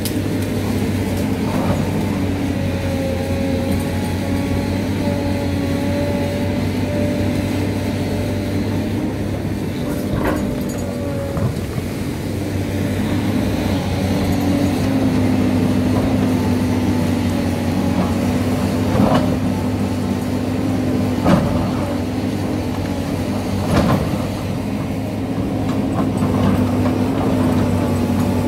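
SANY excavator's diesel engine running steadily under hydraulic load, with several sharp knocks as the bucket strikes rock and soil while cutting into the hillside.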